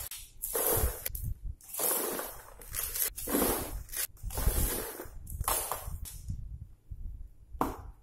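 Plastic bag rustling and crinkling in repeated short bursts as plastic ice packs are handled, then a short sharp knock near the end as the cooler's lid is shut.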